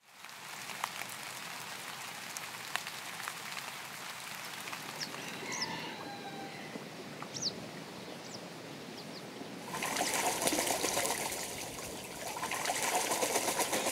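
Water trickling and running, with scattered bird chirps and a short animal call about six seconds in. From about ten seconds in the water grows much louder, eases briefly, then rises again before cutting off abruptly.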